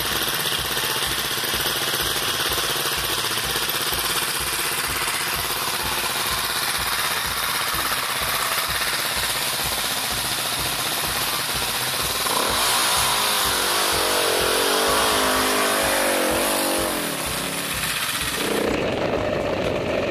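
Dirt bike engines running, with a fast steady putter. From about twelve seconds in, one engine is revved up and down several times. Near the end the sound changes suddenly to a single dirt bike running.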